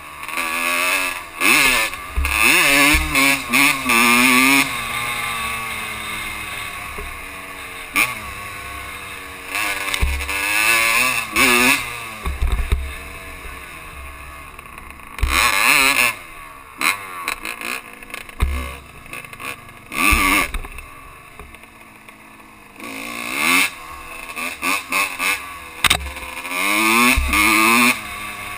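Honda dirt bike engine, heard from on board, revving up and dropping back again and again as the rider shifts through the gears. Bursts of wind noise buffet the microphone.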